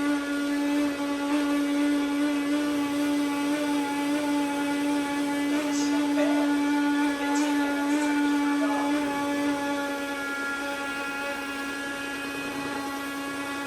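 Roborock S5 robot vacuum running with a steady, pitched droning whine that its owner calls an extremely bad noise, a sign of a fault in the machine. A few short clicks come about six and eight seconds in, and it gets a little quieter after about ten seconds.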